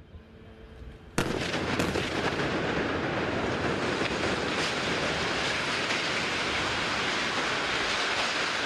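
An airstrike explosion: a sudden loud blast about a second in, followed by a steady, heavy rumble as the high-rise tower collapses in a cloud of dust.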